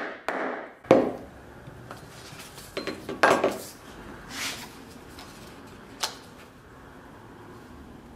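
Workbench handling sounds: a steel hand tool knocks down on the bench about a second in, then a paper pattern rustles as it is fitted against a tooled leather piece, with another sharp tap near six seconds.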